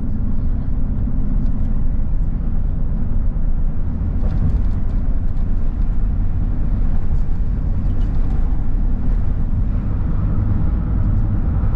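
A steady, loud low rumble with no distinct events, such as wind on the microphone or road noise.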